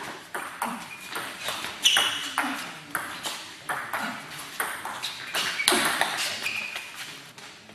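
Table tennis rally: the ball clicking sharply off the paddles and the table in quick succession, about two to three hits a second, until the rally dies away near the end.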